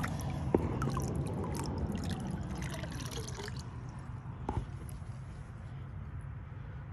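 Water sloshing and trickling in a green plastic gold pan as it is worked, with a couple of light clicks from grit or the pan.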